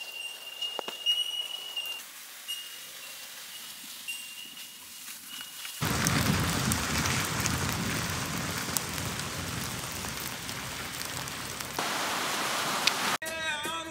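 Quiet forest ambience with a steady high-pitched whine and a few faint clicks. About six seconds in it cuts abruptly to a loud, steady rushing wash of surf breaking on a beach. Music with singing comes in just before the end.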